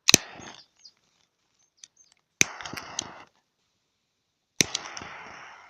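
Triple-jet butane torch lighter fired three times: each time a sharp piezo-ignition click followed by the hiss of the gas jets burning, the last one held for about a second and fading away.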